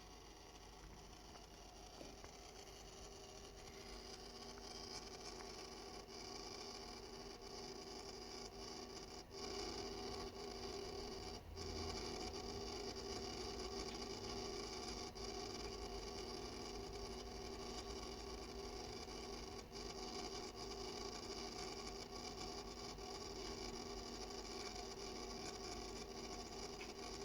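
Corsair iCUE LINK XD5 ELITE LCD PC water-cooling pump running with a steady hum and high whine of several held tones. It grows louder over the first ten seconds or so, then holds level, with a few faint ticks. This is the odd noise the pump is said to make.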